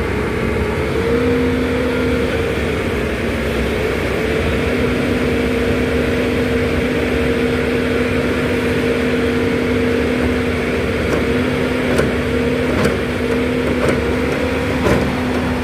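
Road construction machinery running steadily with a constant droning hum. A few sharp clicks or knocks come near the end.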